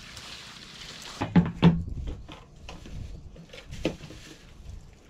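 A branch dragged over dry leaves and twigs, a soft rustling hiss, for about the first second. Then plastic fuel cans and a funnel are handled, with two loud knocks about a second and a half in and a string of lighter clicks and knocks after.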